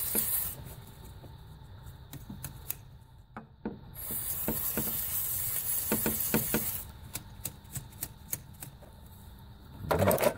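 Aerosol can of circuit board cleaner spraying: a short hiss at the start and a longer one about four seconds in that lasts nearly three seconds, with small clicks and taps of handling between, and a louder handling noise near the end.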